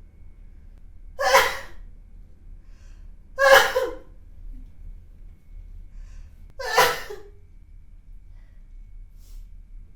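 A person sneezing three times, each sneeze short and sharp, a couple of seconds apart.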